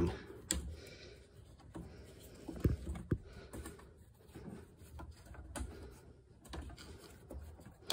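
Faint clicks and taps of hands working a fuel pump module's plastic flange and lock ring in the fuel tank opening, with two sharper knocks a little under halfway through.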